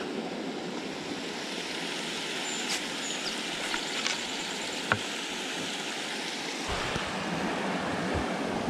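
Steady rushing of creek water spilling through a beaver dam, with a few light knocks and a low rumble joining near the end.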